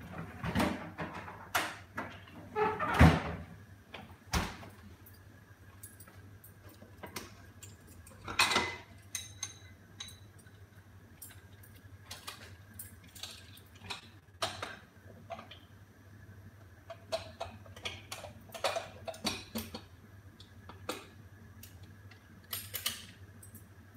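Cookware being handled at a stove: scattered clinks and knocks of metal pots, lids and utensils, the loudest in the first few seconds and again about eight seconds in. A steady low hum runs underneath.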